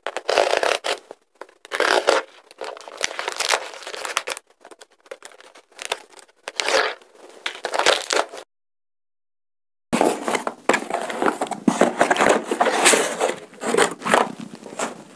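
A cardboard shipping box being cut and torn open by hand, with irregular bursts of scraping, tearing and rustling as flaps are pulled back and smaller product boxes are drawn out. The sound breaks off into dead silence for about a second and a half just past the middle.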